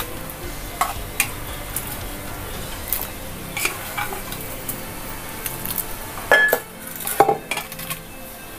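A plastic ladle scoops cooked vegetables and dal from one metal pot into an aluminium kadai, with scattered scrapes, soft knocks and clinks against the metal. A ringing clink and the loudest clatter come a little over six seconds in.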